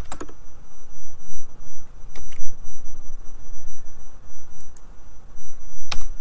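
Computer keyboard and mouse clicks: a quick cluster at the start, two about two seconds in and a sharper one near the end, over a steady low hum and a faint high whine.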